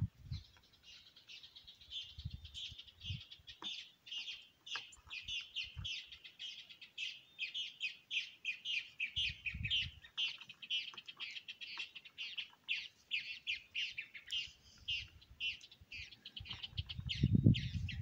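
A songbird singing a long, fast chattering run of high chirps, several notes a second, that stops about a second before the end. A soft low thump comes about halfway through.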